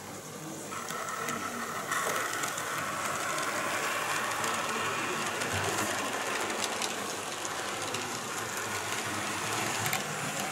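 OO gauge model of a green diesel multiple unit running along the layout's track: a steady running sound that starts about two seconds in and holds level.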